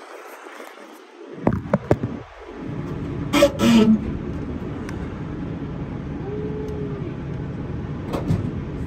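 Clunks and a clattering burst as the hood of a 2023 Kenworth T680 is unlatched and tilted open, with a steady rough handling noise from the phone held against it from about a second and a half in.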